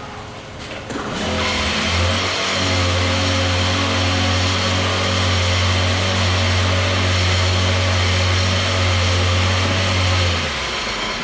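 Gas-engine vibratory screed running at steady full speed on fresh concrete, a loud even hum that comes up about a second in and drops away near the end.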